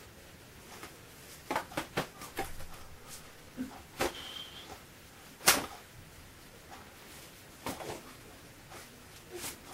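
Scattered sharp taps and clicks at irregular intervals, about a dozen, the loudest about five and a half seconds in, with a brief high squeak a little after four seconds.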